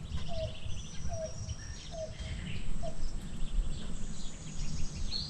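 Nature ambience of birds calling: a short low call repeated about once a second, four or five times, with higher whistles and chirps over a steady low background rumble.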